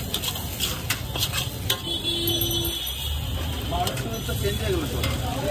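Metal spatula scraping and clinking against a large steel wok as noodles are stir-fried, with several quick strikes in the first couple of seconds, over a steady low rumble of street noise.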